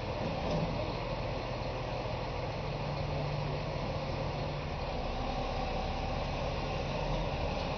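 Truck engine running steadily at a low, even hum.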